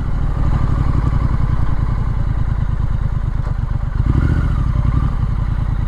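Triumph Street Scrambler's 900 cc parallel-twin engine running steadily under way, with a brief change in its note about four seconds in.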